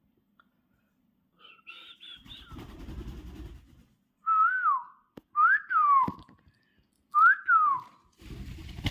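A parrot whistling three short notes, each rising and then falling in pitch, after a few faint chirps and a soft rustle.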